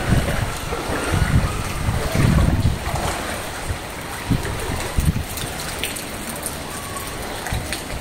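Steady hiss of rain and floodwater, with low rumbles of wind on the phone microphone during the first few seconds and a few faint ticks of drops later on.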